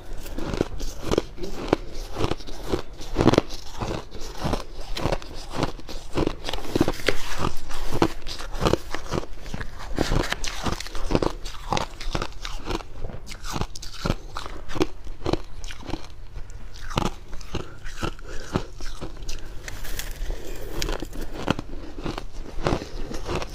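Freezer frost being bitten and chewed: a dense, irregular run of dry crunches, several a second, without pause.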